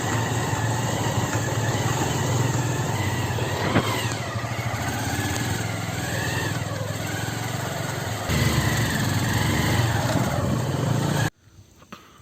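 Motorcycle engine running under way with wind noise on the microphone, getting louder about eight seconds in. It cuts off suddenly near the end, leaving faint outdoor sounds.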